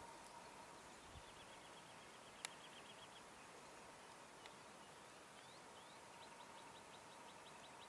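Near-silent open-country ambience: faint rapid trills of high ticks, about ten a second, about a second in and again near the end, with one sharp click a little past two seconds.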